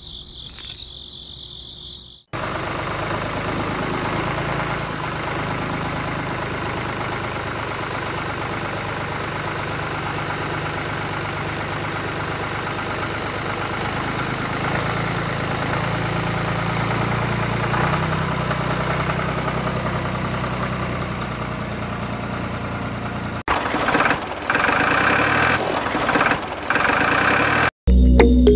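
Tractor engine running at a steady idle with an even low chug. It starts abruptly a couple of seconds in and cuts off abruptly a few seconds before the end.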